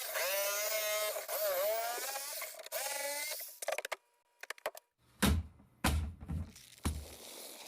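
A loud squealing creak that wavers and glides in pitch for about three and a half seconds. A short pause with a few clicks follows, then several deep thuds about five to seven seconds in.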